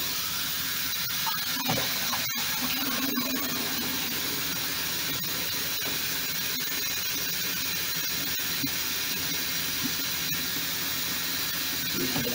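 Tap water running steadily into a bathroom sink, a constant hiss, with a few light clicks and knocks from handling the denture.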